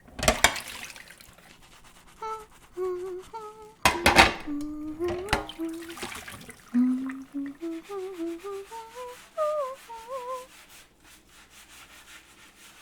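A woman humming a slow, wandering tune, over scrubbing and a few loud clatters of dishes being washed.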